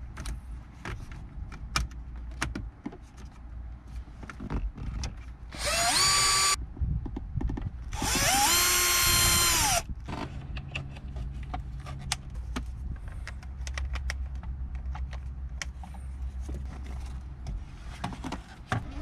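A battery-powered drill-driver runs twice, once for about a second and then for about two seconds, its motor whine rising as it spins up and falling as it stops, driving in the screws that hold the radio and dash trim. Scattered clicks and knocks of plastic trim being handled come before and after.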